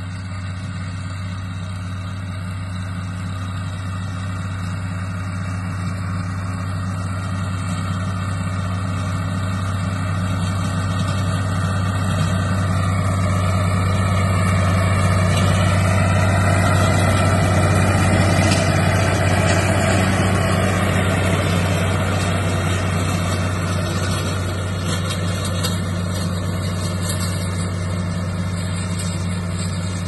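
Allis-Chalmers 185 diesel tractor engine running steadily while pulling a hay crimper. It grows louder as the tractor approaches, is loudest as it passes close about 16 to 19 seconds in, then fades as it moves away.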